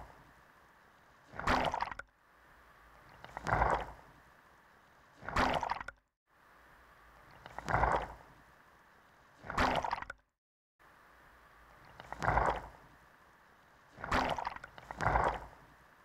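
Water gurgling and sloshing in short swells, one roughly every two seconds, with silence in between.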